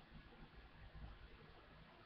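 Near silence: faint room tone with a low hum and hiss from the webcam microphone.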